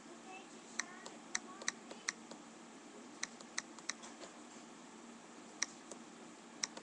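About ten sharp clicks at a computer, in small irregular groups, over a faint steady room hiss.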